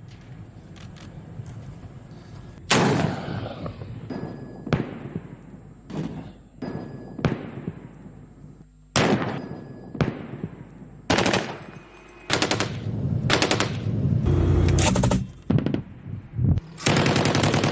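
Live-fire gunfire: single shots with long echoing tails, a second or two apart, then about two-thirds of the way in, rapid bursts of automatic fire.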